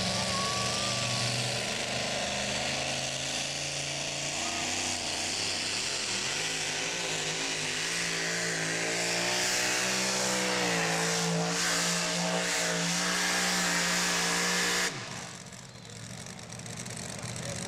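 Modified two-wheel-drive pulling truck's engine at high revs under load as it drags a weight transfer sled, its pitch wavering and climbing as the pull goes on. The engine sound drops off abruptly about fifteen seconds in.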